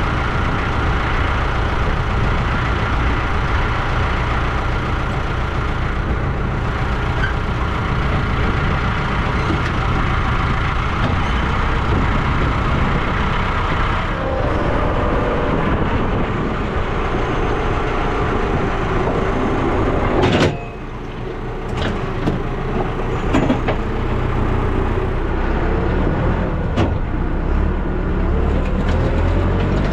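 Tractor engine running steadily under load. It cuts off sharply about two-thirds of the way through and picks up again, rising in pitch near the end as it revs.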